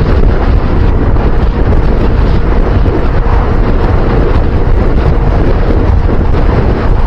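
Loud, steady wind buffeting on the microphone, rumbling heavily at the low end, with a faint steady hum underneath.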